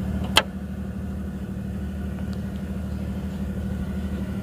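An engine idling steadily with a low, even hum, and one sharp click about half a second in.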